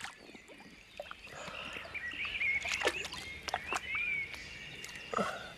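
Water splashing and sloshing as a large wels catfish is held and eased back into the river by hand, with short chirping animal calls in the background through the middle.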